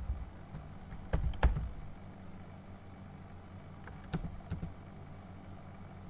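Computer keyboard keys pressed a few times while letters are deleted. There are two sharp clicks about a second in, the second the loudest, and three lighter clicks around four seconds in. A low steady hum runs underneath.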